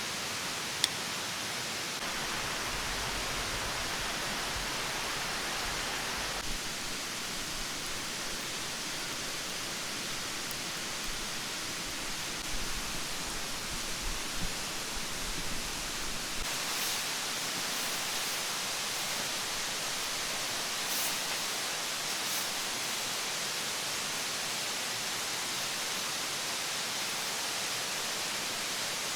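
Mountain stream water rushing steadily, with a few light clicks partway through.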